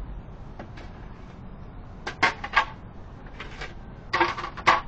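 Clinks and clatters of metal food bowls and cans being handled, in two short clusters about two seconds in and about four seconds in.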